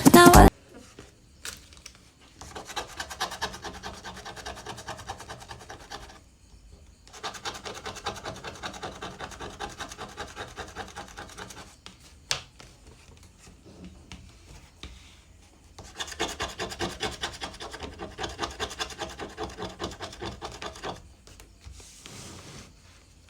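Rapid rhythmic rubbing or scratching, a few strokes a second, in three runs of several seconds each with short pauses between, and a single sharp click about halfway through. Background music cuts off just after the start.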